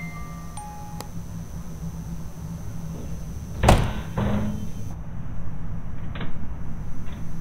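A low steady drone with the last chime-like notes dying out in the first second, then a sudden loud bang a little past halfway, followed closely by a second heavier thud. Two faint clicks come near the end.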